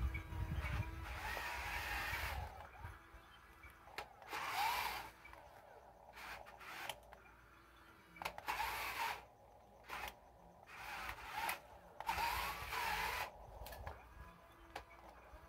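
Radio-controlled Cat wheel loader's electric drive motors whining in a string of short bursts as it drives and turns in loose dirt, the pitch rising and falling with each burst.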